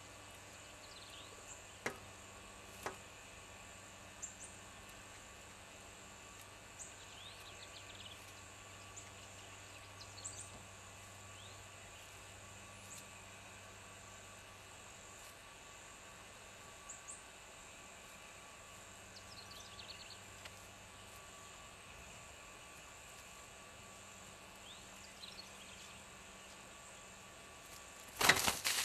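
Quiet outdoor background with a steady low hum and a few faint, high bird chirps, broken by two sharp taps in the first few seconds. Near the end comes a short, loud flurry of rapid taps and clicks.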